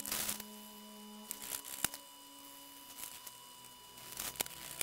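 A wet wipe rubbed by hand over the wooden top panel of a cassette deck: short scrubbing and crinkling strokes with a few sharp clicks, over faint steady tones.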